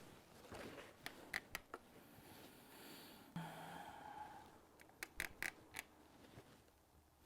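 Faint handling noises: a few sharp clicks in two small clusters about four seconds apart, with a brief scrape between them.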